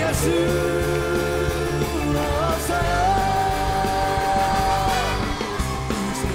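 Live rock band performance, with a lead melody line holding one long note for about two seconds in the middle.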